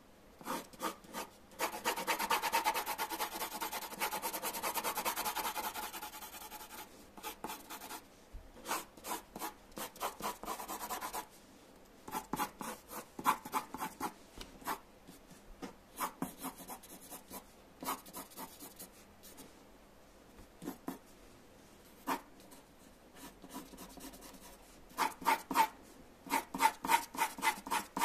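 Wooden pencil scratching on paper in quick back-and-forth hatching strokes. About two seconds in comes a dense run of rapid shading strokes lasting some four seconds, then short bursts of strokes with brief pauses, and fast strokes again near the end.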